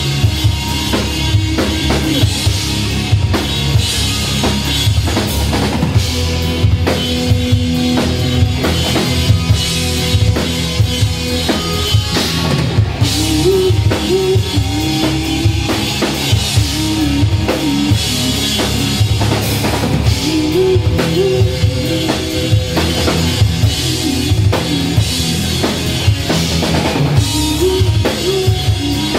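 Live rock band playing: a drum kit hitting a steady kick and snare rhythm under electric guitars, with a melodic line that steps up and down from about halfway through.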